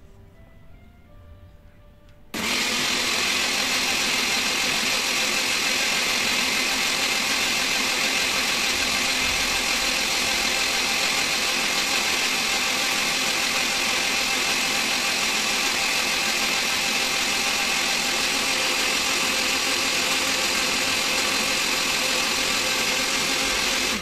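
Electric countertop blender switched on about two seconds in, running steadily at one speed while blending a jug of thin grape juice, then switched off suddenly near the end.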